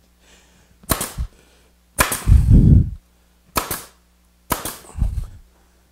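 Grex 18-gauge pneumatic brad nailer firing several times as brads are tacked into a plywood shop cart: a handful of sharp pops spread over the few seconds. The loudest and longest is about two seconds in.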